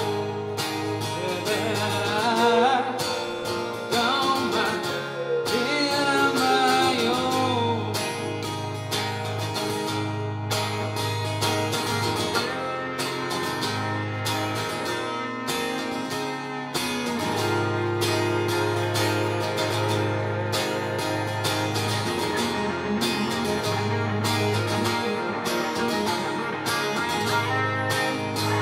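Two guitars, one of them electric, playing a song together live, with notes bending and wavering in pitch a couple of seconds in and again near the end.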